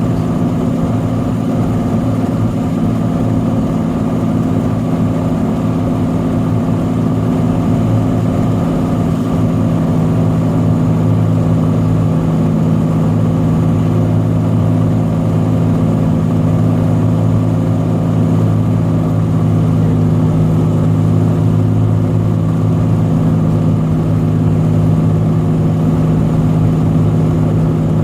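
Cessna 182's piston engine and propeller droning steadily, heard from inside the cockpit, growing a little louder about eight seconds in.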